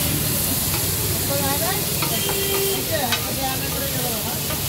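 Kabab meat sizzling as it cooks, a steady frying hiss.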